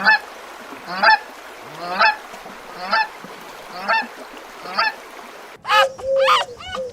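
Waterfowl calling: six short honking calls, about one a second. Near the end a louder, different animal call takes over.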